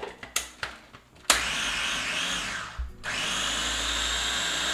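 Mini food processor motor running in two pulses of about two seconds each, with a brief stop between them, pureeing fresh herbs, onion and hot pepper into a seasoning paste. The second pulse has a steady high whine. A few light clicks come just before the motor starts.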